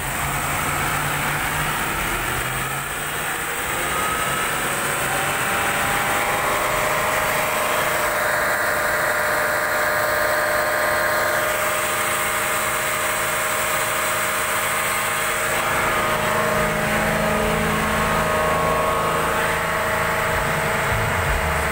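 Land Rover Range Rover (L405) engine idling with the bonnet open: a steady hum with several steady tones held throughout. This is an engine with an overheating problem.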